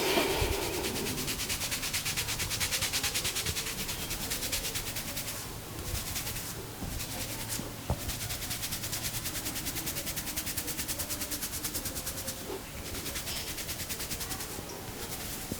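Hands briskly rubbing a person's scalp, fingers scrubbing through the hair in fast, even strokes several times a second that make a rhythmic rasping hiss, pausing briefly a few times.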